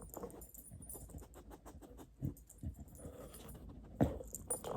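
A dog panting and moving about, with irregular soft knocks and scuffs, the loudest about four seconds in.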